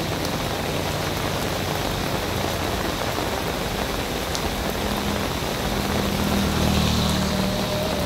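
Heavy rain falling steadily on a paved street and foliage. In the second half, a motorcycle engine hum grows louder as the bike approaches.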